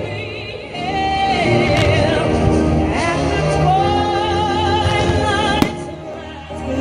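Music with a singer holding long vibrato notes over a band. Two sharp firework bangs cut through it, one at the very start and one about five and a half seconds in.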